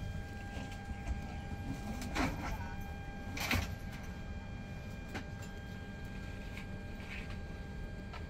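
Airliner cabin ambience: a steady hum with a faint high whine, broken by a couple of short clunks about two and three and a half seconds in, the second one louder.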